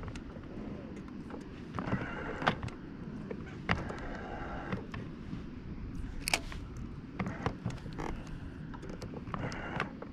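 Scattered light clicks and a few sharper knocks from fishing tackle handled on a boat, over a low steady rumble.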